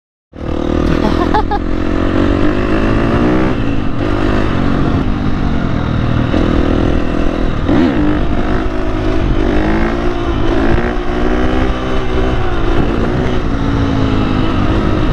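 Dirt bike engine running under way, its pitch rising and falling repeatedly with the throttle. It cuts in a moment after a brief silence at the start.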